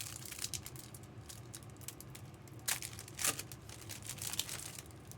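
Crinkly plastic or foil wrapping on trading-card boxes or packs being handled, giving a run of rustles and crackles. Two louder crackles come a little past the middle.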